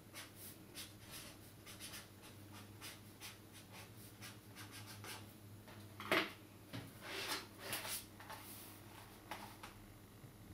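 Scratchy strokes and rustling of paper on a spiral notepad being written on and handled, loudest a little past halfway, over a faint steady low hum.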